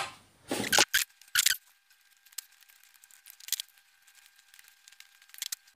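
Tin snips handled on a steel workbench: two short metallic clatters, then faint scattered clicks as aviation snips trim the edge of a small sheet-steel cone blank.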